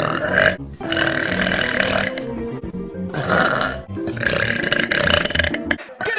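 A woman belching: several long belches in a row, separated by brief breaks.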